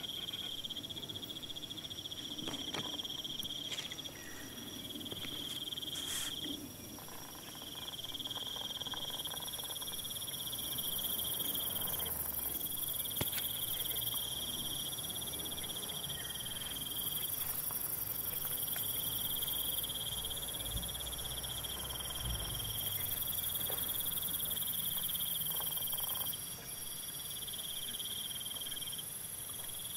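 Forest insects trilling: a shrill, steady trill that breaks off and restarts every few seconds, over a higher hiss from more insects that comes and goes, with a few faint clicks.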